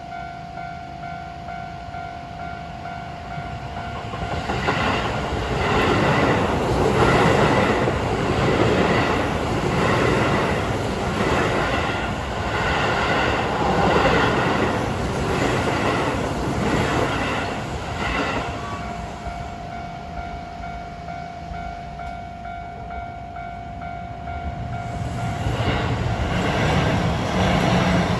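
A Keio Line electric train crosses a level crossing, its wheels knocking rhythmically over the rail joints about once a second, while the Japanese crossing warning bell keeps ringing. The bell is heard alone before the train and again after it has passed. A second train comes in near the end.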